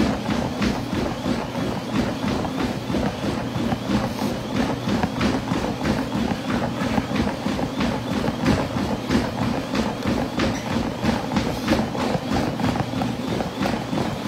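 Treadmill running at speed: a steady hum from its motor and belt under running footfalls on the deck, about three a second.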